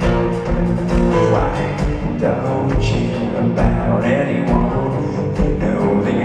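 Live rock band playing an acoustic arrangement: strummed acoustic guitars over a drum kit with a steady beat, heard from the audience in a concert hall.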